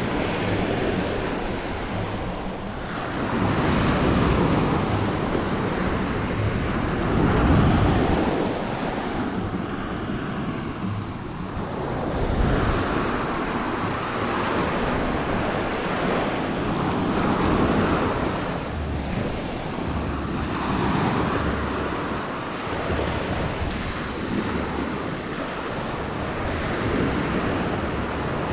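Small waves breaking and washing up a sandy beach, the surf swelling every four or five seconds, with wind buffeting the microphone.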